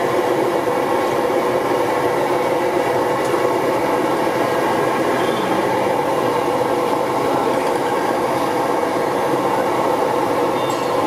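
Steady rushing noise of samosas deep-frying in a kadai of hot oil over the stall's burner.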